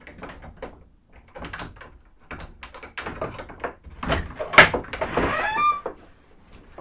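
Irregular clicks and knocks with rustling, rising to a louder thump about four and a half seconds in, followed by a short scrape with a falling squeak.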